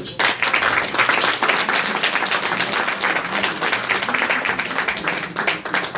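Audience applauding: many hands clapping steadily, thinning out a little near the end.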